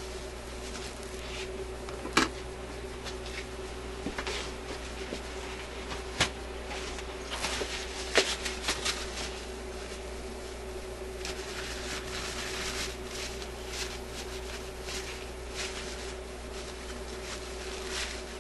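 Tissue paper rustling and a few sharp clicks of small metal parts as a part of a record player's end-of-record trip mechanism is handled and wiped clean, over a steady low hum.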